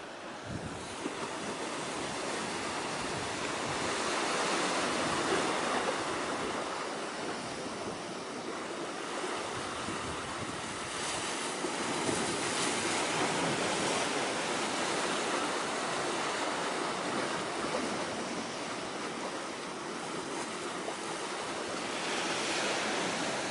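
Sea waves washing in at the shore, a steady rushing noise that swells and eases every few seconds, with some wind.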